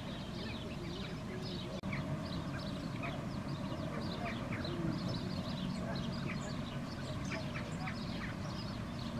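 Many birds calling at once: a dense, continuous stream of short high chirps over lower calls, with duck-like quacking among them.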